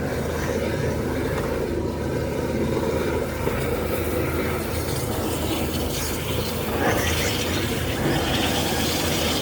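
Drain jetter's engine running steadily under load while jetting a drain.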